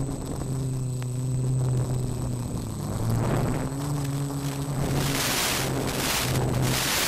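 Quadcopter's four brushless motors (Turnigy SK3 2822) and 8×4.5 propellers humming in flight, the pitch sliding down and back up as the throttle changes. From about five seconds in, bursts of static hiss cut in over the hum, the sign of the 5.8 GHz FPV audio link breaking up.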